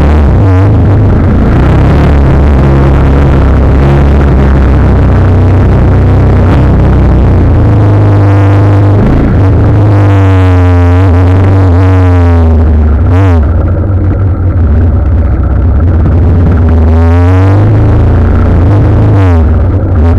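Electronic music with a heavy bass line. Over it a motorcycle engine revs, its pitch dropping and climbing through gear changes about halfway through and again near the end.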